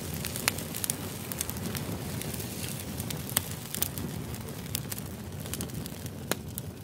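Mushroom hot pot boiling in a shallow pan: a steady low bubbling of the spicy broth with many irregular sharp pops and crackles.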